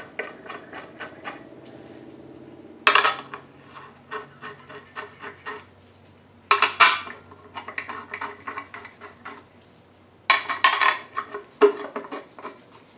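Metallic clinking and rapid clicking in three short runs, about three, six and a half and ten seconds in, from bolts and a hand tool as the front cover is bolted onto a GM 4.8 V8 engine block.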